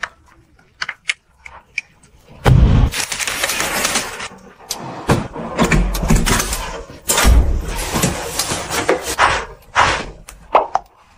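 Bedding being handled: a few soft clicks, then a soft thump about two and a half seconds in, followed by long stretches of fabric rustling with more soft thumps.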